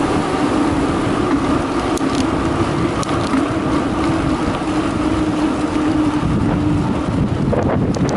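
Wind rushing over the microphone and the tyres of a Carraro Big 827 mountain bike rolling fast downhill on a concrete road. There is a steady hum under the rush and a few small rattles from bumps.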